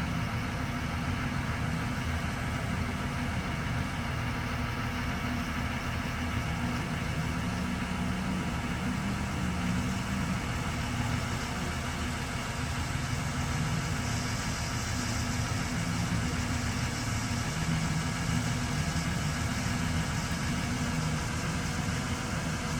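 A large engine idling steadily, a low, even rumble.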